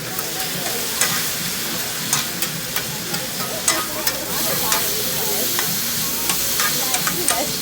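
Food sizzling on a hibachi griddle, a steady hiss with frequent sharp clicks of metal spatulas tapping and scraping on the hot plate.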